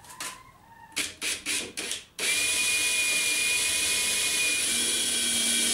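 Cordless drill giving a few short bursts, then running steadily, drilling a pilot hole for a nail through a boat's wooden rail. Its whine shifts slightly in pitch about two-thirds of the way through.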